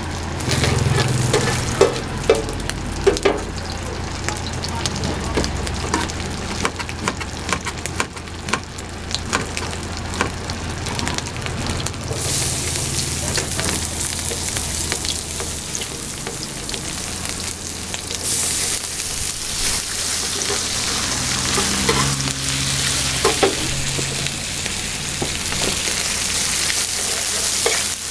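Sliced onions, ham and beef frying on a flat steel griddle, sizzling, with tongs clinking against the metal. The sizzle comes in loud about halfway through; before that, a run of sharp knocks and clicks of kitchen work.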